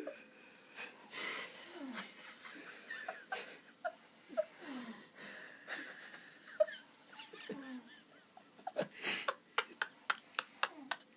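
A man snoring heavily in his sleep: wheezy breaths with short falling tones every two to three seconds. Near the end comes a quick run of short sharp pulses, about four a second.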